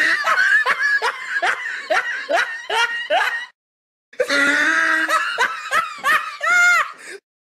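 A person laughing in quick bursts, about two to three a second, then a short break and a second bout of laughter that ends on a high-pitched note.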